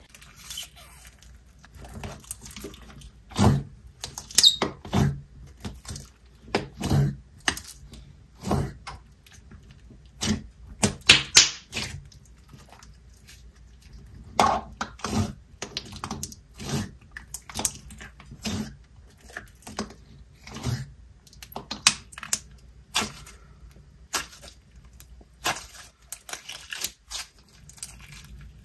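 Clear glue slime with a foam-bead top being pulled from its tub, pressed and stretched by hand: irregular sticky clicks and small pops, some much louder than others.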